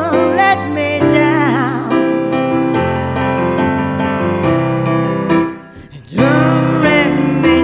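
Slow piano-backed music with a voice singing long, wavering notes without clear words. The music drops away briefly a little after five seconds in, then comes back.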